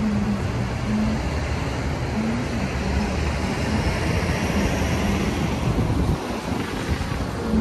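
Steady vehicle rumble with road noise.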